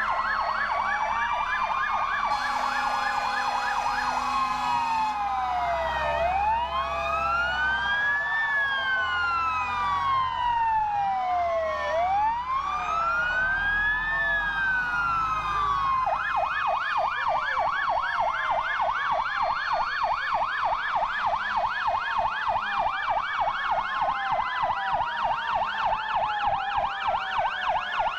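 Several fire-truck electronic sirens sounding at once as fire engines pass. They run in a fast yelp, change to slow rising-and-falling wails about four seconds in, and go back to a fast yelp a little past halfway. A steady horn sounds for about two seconds near the start, and a truck engine rumbles as an engine drives close by mid-way.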